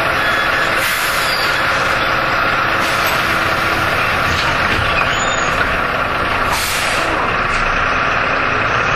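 Jelcz M121M city bus's diesel engine idling, heard from inside the bus, with a few short hisses of released compressed air from its pneumatic system.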